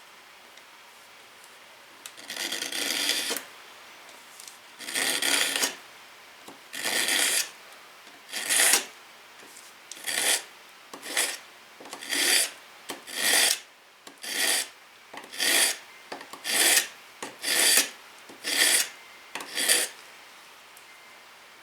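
Repeated hand strokes of an abrasive tool along the steel of a reciprocating-saw blade, working up its knife edge. There are about fourteen strokes: the first few are slower and longer, then they come roughly one a second.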